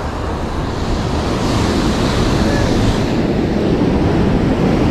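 Ocean surf washing up on the beach, a steady rush that swells slightly louder, with wind buffeting the microphone.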